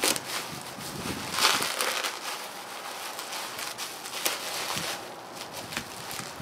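Plastic bubble wrap crinkling and crackling as hands pull and crumple it off a portable cassette boombox. There are many small crackles throughout, and a louder crunch about a second and a half in.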